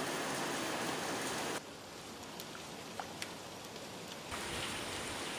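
Rain falling, an even hiss. About a second and a half in it drops to a lighter patter with a few separate drops, then grows heavier again near the end.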